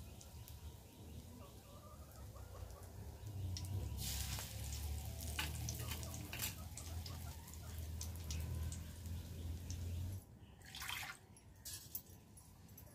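Prawn-head batter fritters frying in hot oil in an iron kadai: a steady light sizzle with sharper crackling spurts, the biggest about four, five and a half, six and a half and eleven seconds in. A low rumble runs under it from about four seconds until ten.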